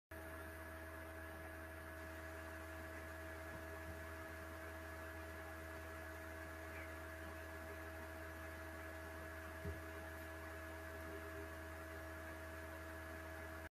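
Quiet, steady electrical hum made of several fixed tones over a faint hiss, the background noise of a recording setup with no one speaking; one faint soft tick near the end.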